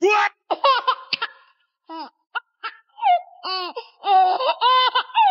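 High-pitched laughter: a quick run of short 'ha-ha' peals, starting abruptly and going on with brief gaps.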